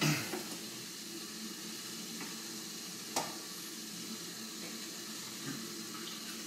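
Fish fillet frying in a hot pan, sizzling steadily, with one light click about three seconds in.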